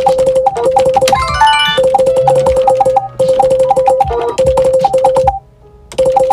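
Background music on synthesizer: a repeated note in a quick, bouncy rhythm, with a fast rising run of notes about a second in and a brief break near the end.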